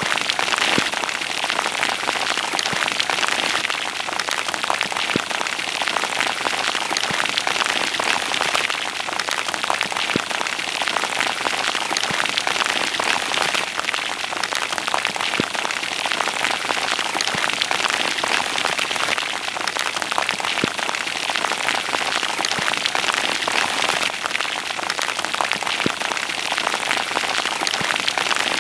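Steady heavy rain falling on open water and on close surfaces around the microphone, a dense hiss threaded with many sharp individual drop ticks.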